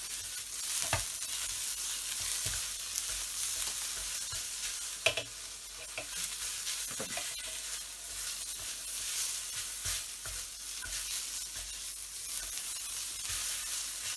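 Shrimp sizzling in rendered pork-belly fat in a wok as they are stirred and turned: a steady frying hiss with a few sharp knocks, the loudest about five seconds in.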